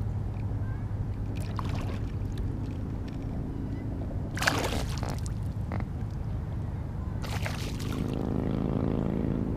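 A hooked largemouth bass splashing at the water's surface beside the kayak, twice in short loud bursts, about halfway through and again near the end, over a steady low rumble.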